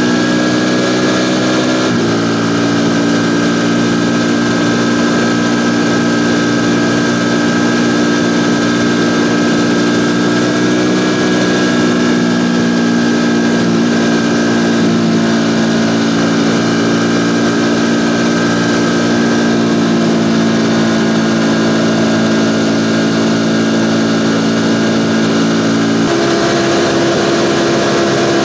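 Ducati Panigale V4 motorcycle's V4 engine running steadily under way, with its pitch shifting abruptly about two seconds in and again near the end.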